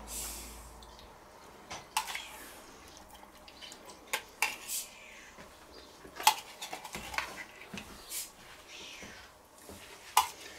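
Metal spoon clinking and scraping against the inside of an open tin can as pineapple chunks are scooped out, a series of irregular sharp clinks.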